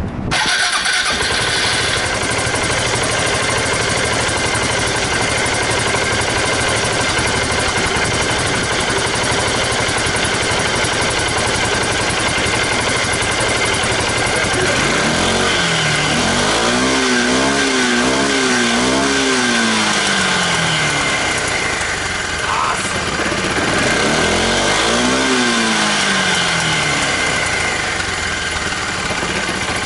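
2005 Suzuki Burgman scooter engine idling steadily through its exhaust. The throttle is opened twice, about halfway through and again near the end, the pitch climbing, holding and falling back to idle each time.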